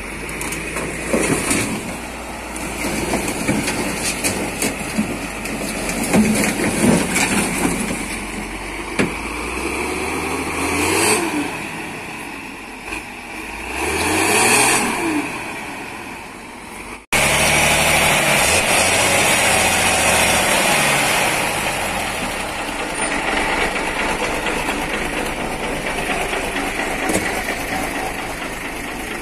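Diesel truck engine revving repeatedly under heavy load as it hauls an overturned tanker truck with a steel cable, its pitch rising and falling with each rev. After a sudden break about two-thirds of the way in, the engine runs on more steadily.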